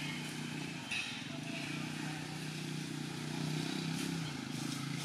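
An engine running steadily, a low even hum, with two or three short high chirps in the first two seconds.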